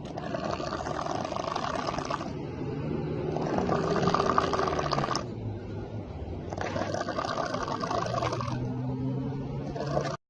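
A person snoring loudly, with a rough roar like a big cat's. Three long snores of about two seconds each alternate with quieter breaths that carry a low drone. The sound breaks off abruptly at the very end.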